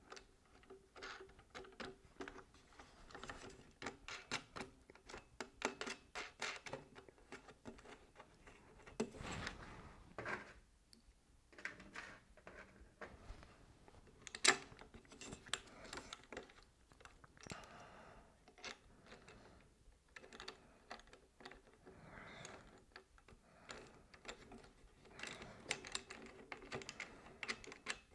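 Faint scattered clicks and taps of hand assembly: wing nuts and washers being threaded onto the bolts of plastic tuner brackets clamped round an aluminium mast. One sharper tap stands out about halfway through.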